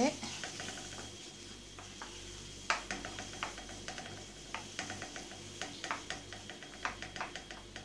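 7-Up heating with garlic and cooking oil in a nonstick wok, sizzling with a soft hiss and irregular pops and clicks as a wooden spatula stirs through it. It is being brought to a gentle boil.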